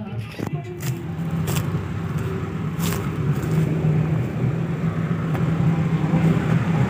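A tractor's diesel engine running steadily with a low drone that grows slightly louder, with a few faint clicks over it.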